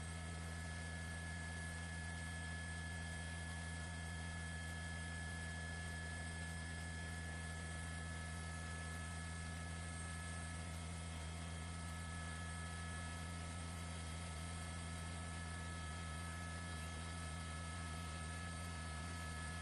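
Steady hum with a few faint, unchanging higher tones over light hiss, with no change in level.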